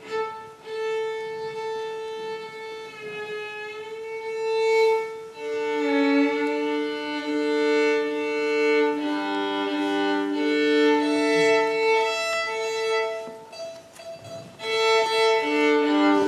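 Solo violin playing a piece in long held notes, with two notes sounding together in double stops from about five seconds in. The playing eases off briefly near the end, then picks up again.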